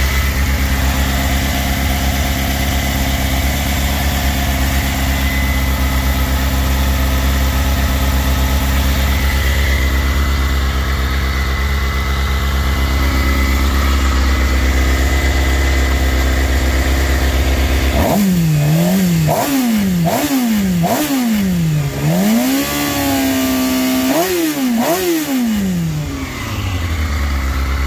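2006 Suzuki GSX-R600's inline four-cylinder engine idling steadily through a Hindle full exhaust with its quiet insert fitted. About two-thirds of the way in it is revved in a run of about six quick throttle blips, each rising and falling in pitch, then drops back to idle.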